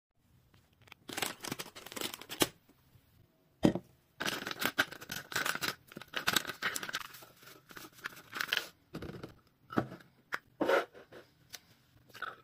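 A foil-and-plastic sachet of chocolate sauce mix crinkling as it is handled and torn open, in irregular rustling bursts with one sharp snap just under four seconds in.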